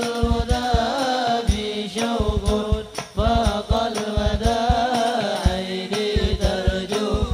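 Sholawat, an Arabic devotional song, sung in long, wavering melismatic lines over a quick rhythm of low hand-drum strokes in the habsyi style.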